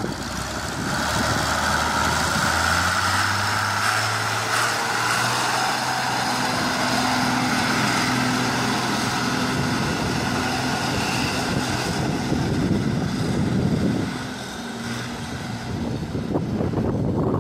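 John Deere 3420 tractor engine running steadily as the tractor drives off across gravel, with a brief dip in level about fourteen seconds in.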